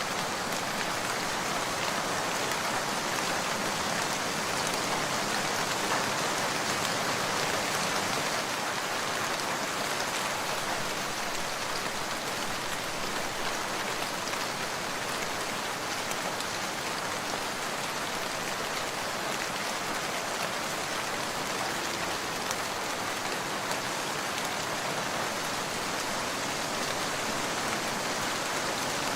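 Heavy rain falling steadily, an even, dense hiss of many drops with no letup.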